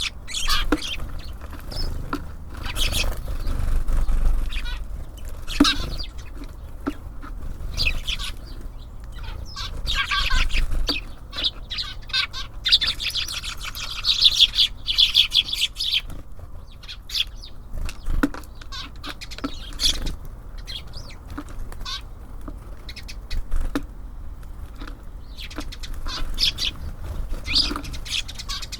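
Small birds at a feeder: wings fluttering on landing and take-off, with short high chirps and clicks throughout, thickest in a busy patch near the middle. A steady low rumble lies underneath.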